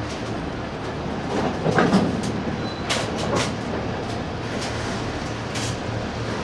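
Network Rail hopper wagons of a freight train rolling past, their wheels rumbling steadily over the rails. Sharp knocks come at uneven intervals, the loudest about two seconds in, with a brief high squeak shortly after.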